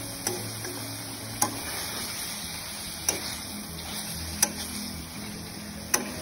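Metal spatula stirring chicken frying in oil in a kadai, knocking against the pan five times, about every second and a half, over a steady sizzle.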